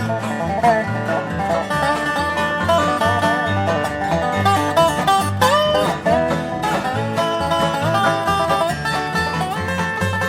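Bluegrass band playing an instrumental break, with banjo and guitar over a steady alternating bass line and some sliding melody notes.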